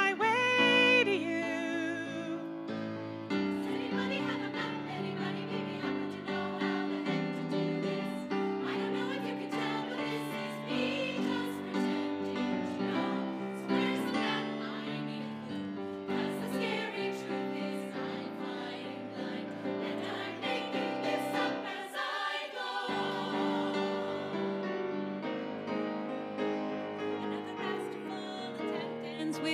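Women's choir singing in harmony with piano accompaniment. There is a brief break in the low parts about three quarters of the way through before the full sound resumes.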